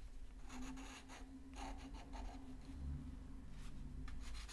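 Brown coloured pencil scratching on paper in quick, irregular strokes, faint.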